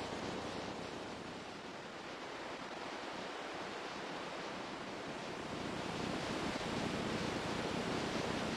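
Steady rushing water, like surf, dipping slightly about two seconds in and then slowly swelling louder.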